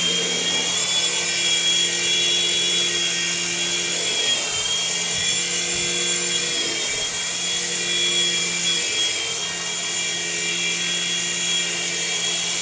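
A BeeWi Storm Bee 3-channel coaxial micro RC helicopter's electric motors and rotors whine steadily near full throttle while it hovers just off the floor. The pitch wavers a little as the throttle is worked.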